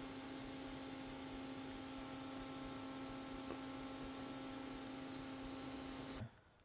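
A steady electrical hum, one low tone with fainter evenly spaced higher tones over a light hiss, that cuts off suddenly near the end.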